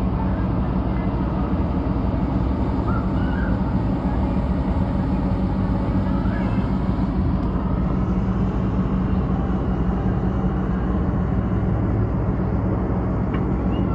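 Steady, unchanging low drone of a running engine, with a constant hum and faint voices in the background.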